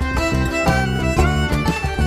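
Background music: a fiddle tune playing a quick run of notes.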